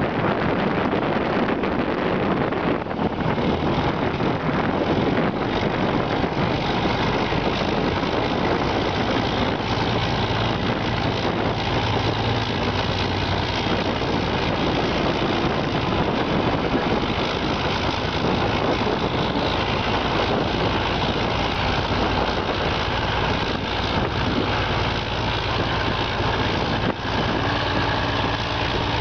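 The V12 diesel engine of a DT-30P Vityaz articulated tracked amphibious vehicle running steadily as the vehicle drives off the bank into the water.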